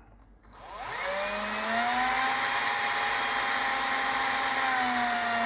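Hand-held electric drill motor starting up about half a second in, whining up to speed and then running steadily while it spins a small round LED circuit board fixed in its chuck; the pitch sags slightly near the end.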